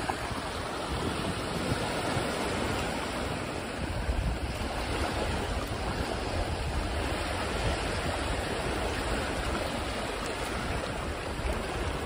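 Small waves washing and lapping onto a sandy beach, a steady surf wash, with wind buffeting the microphone as a low rumble that swells about four seconds in.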